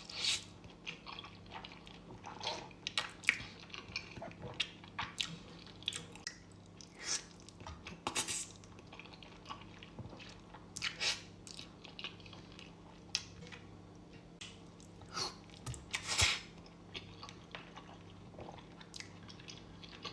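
Close-miked eating of ramen: irregular wet chewing and mouth sounds, with the occasional louder bite or slurp, over a faint steady hum.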